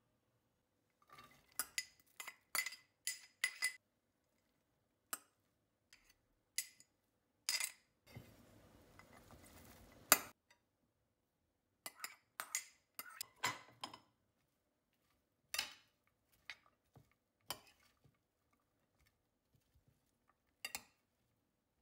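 Metal spoon clinking and tapping against a ceramic bowl and a glass baking dish as chopped vegetables are scraped in, with a short soft rustle of vegetables sliding out about eight seconds in, ending in the sharpest clink. Scattered lighter taps and clicks follow as the vegetables are spread in the glass dish.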